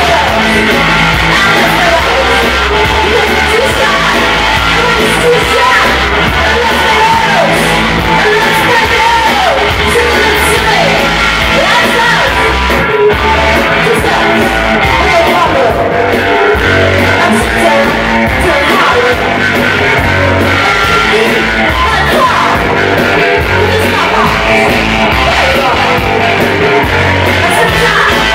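A rock band playing live and loud: a woman singing into a microphone over electric guitar and electric bass.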